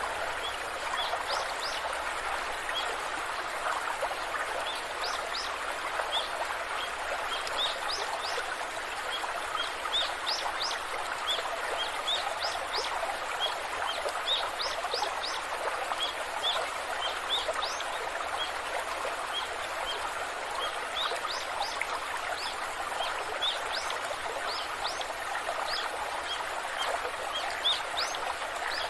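Waterfall rushing with a steady, even noise of falling water, while small birds give many short, high, upward-sweeping chirps throughout.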